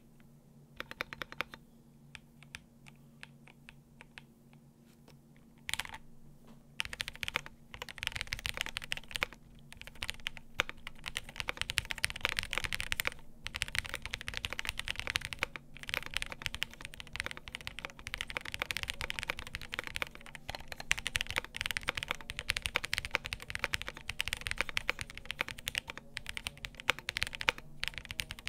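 Cannon Keys Brutal V2 1800 mechanical keyboard with Chocolate Toffee switches, Cherry clip-in stabilisers and a carbon-fibre half plate. It starts with a few scattered key clicks and, after about six seconds, goes into continuous fast typing.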